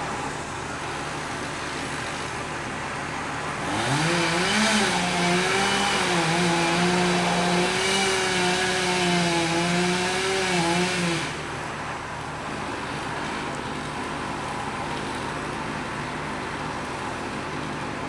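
Chainsaw revving up about four seconds in and cutting for around seven seconds, its pitch wavering under load, then cutting off suddenly, over a steady engine hum.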